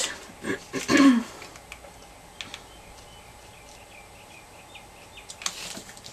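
Faint small clicks and a short rustle from a hot glue gun and seashells being handled, with a brief murmur of voice about a second in.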